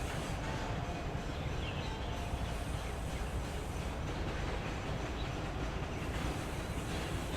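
Steady low mechanical rumble of heavy machinery, with a few faint brief squeaky tones in the first few seconds.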